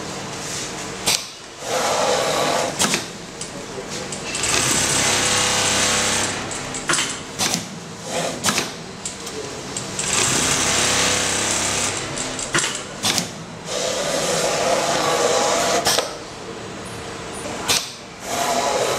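Industrial automatic pattern sewing machine stitching trouser pocket and velcro seams through a clear template. It runs in stretches of a few seconds that change in tone, broken by several sharp clicks.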